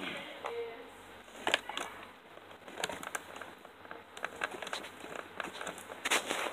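Plastic packaging crinkling and rustling, with scattered clicks and knocks, as a toy chainsaw is worked free of its box. The sharpest knocks come about one and a half seconds in and again near the end.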